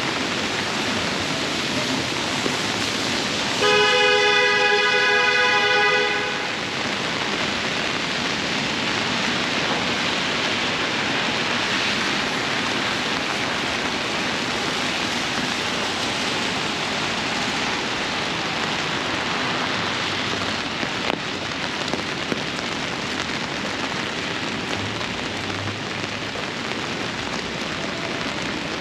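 Steady heavy rain hissing on the street, with one long vehicle horn blast of about two and a half seconds starting about four seconds in.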